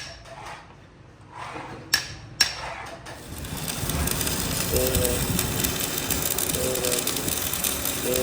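A few sharp metal-on-metal hammer blows, two of them about half a second apart, then from about three seconds in a louder, steady mechanical noise with intermittent ringing metallic tones.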